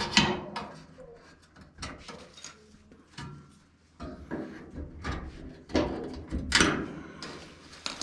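Irregular knocks, clunks and scrapes of hard appliance parts and panels being handled during a repair, about a dozen sharp ones, the loudest about two-thirds of the way through.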